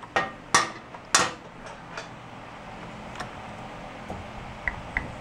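Steel wrench clinking against the alternator rotor nut and its holding tool on a 1971 Honda CB350 engine as it is fitted on: three sharp metallic clinks in the first second and a half, then a few fainter taps.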